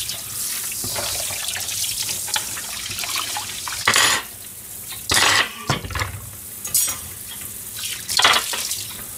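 A kitchen tap runs into a stainless steel sink while a plastic cutting board is rinsed under it. The flow drops about four seconds in, and several loud splashes follow, at about four, five, seven and eight seconds in, as the board and hands pass under the stream.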